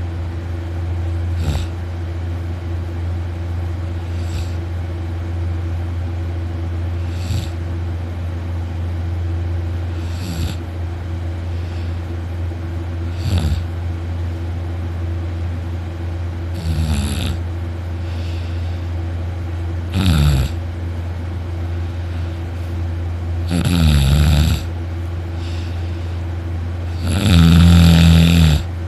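A young man snoring very loudly in deep sleep, one snore about every three seconds with a falling pitch. The snores grow louder and longer toward the end, over a steady low hum.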